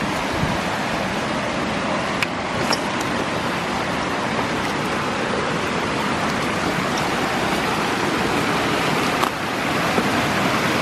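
Steady rush of a canyon creek running high with spring snowmelt runoff, with a few faint ticks about two seconds in and again near the end.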